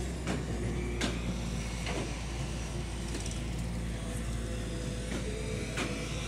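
JCB 3DX backhoe loader's diesel engine running steadily as the backhoe bucket digs into soil and rocks, with a few sharp knocks of stone against the steel bucket.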